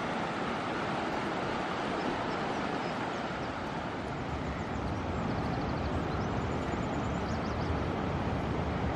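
Steady rushing outdoor noise with no distinct events. Faint, high, short chirps come in about halfway through.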